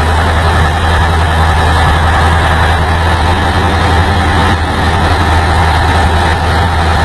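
Old FNM truck's diesel engine running steadily at highway cruising speed, heard from inside the cab: a constant deep hum with road and wind noise over it.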